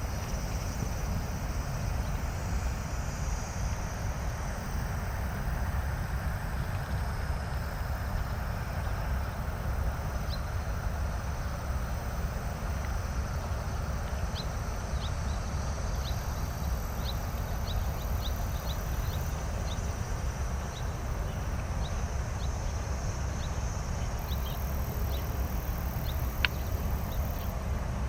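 Steady outdoor background noise: a low rumble with a faint high hiss and scattered faint high ticks, and one sharp click near the end.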